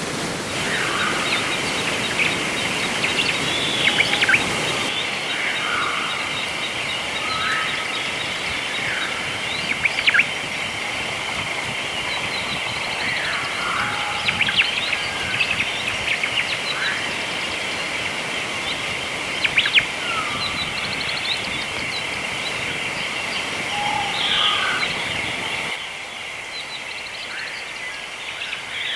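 Nature ambience: birds calling and chirping at scattered intervals over a steady high-pitched drone and a soft wash of background noise. The background thins about five seconds in and drops again near the end.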